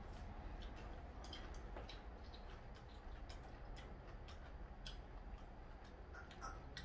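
Faint eating sounds: scattered small clicks and smacks of people chewing, with light chopstick clicks, over a low steady room hum.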